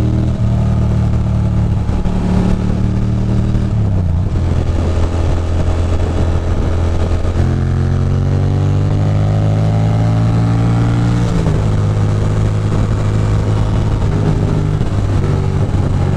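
2006 Ducati Monster 620's air-cooled L-twin engine heard from the rider's seat while under way, with road and wind noise. The engine note drops about four seconds in. About halfway through it climbs steadily for several seconds as the bike accelerates, then falls abruptly and runs on steady.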